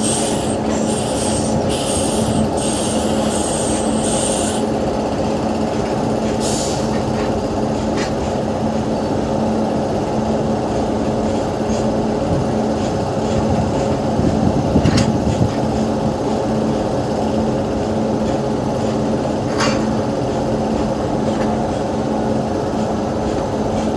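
Steady hum and rumble of a WAP7 electric locomotive at close range, with a constant low tone. Short high hissing bursts come in the first four seconds, and a few sharp clicks or clanks are scattered later.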